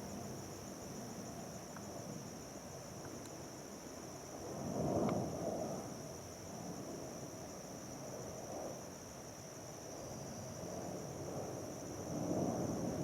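Crickets trilling steadily and high-pitched, over a low rushing noise that swells briefly about four seconds in and again near the end.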